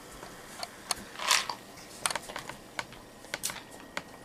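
Ice cubes clinking in a glass of soda as it is sipped: irregular light clicks, with a short noisy sip about a second in.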